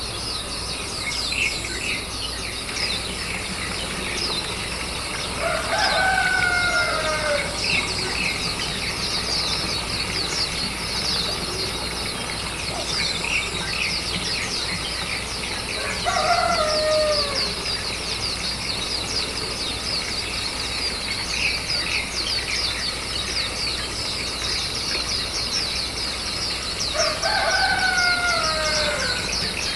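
A drawn-out, falling animal call, given three times about ten seconds apart, over a steady, dense, high chirring.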